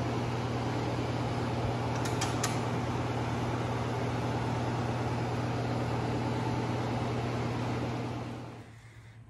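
Electric floor-drying blower (air mover) running steadily with a low motor hum, blowing across a freshly washed concrete floor; the sound drops away near the end.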